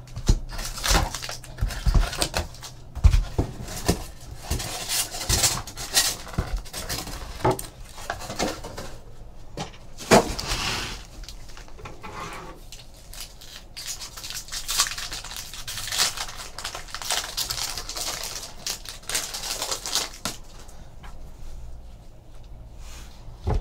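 Foil wrappers of trading-card packs being torn open and crinkled, with cards handled and flicked through: a run of irregular crackles and rustles that thins out near the end.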